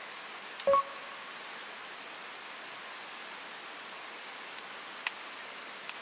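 A Barebones Railroad Lantern LED being handled and switched on: one sharp knock with a brief metallic ring about a second in, then a few faint ticks near the end, over a steady background hiss.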